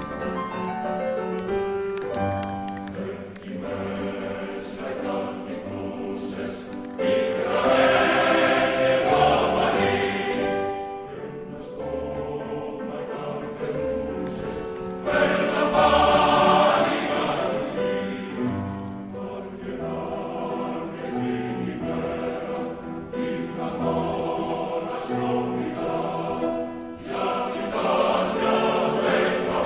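Choral music: a choir singing sustained harmonies, swelling louder three times.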